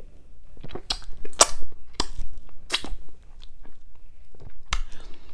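Close-miked chewing of a small sour dill pickle coated in whipped cream: irregular wet crunches and mouth smacks, a few of them sharper and louder.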